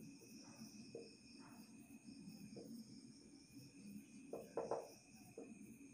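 Felt-tip marker writing on a whiteboard: a scatter of short, faint squeaky strokes, with a louder cluster about four seconds in, over a faint steady high-pitched background drone.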